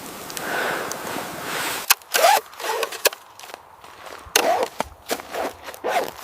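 A steady rushing hiss for about two seconds, then a series of sharp, uneven crunches with short squeaks, like footsteps in cold snow.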